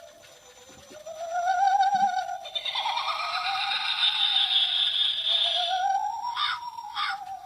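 Animated light-up Halloween ghost prop playing its spooky sound effect: a wavering, ghostly wail that slowly rises and falls in pitch, with a hissing layer over the middle and regular pulses starting near the end.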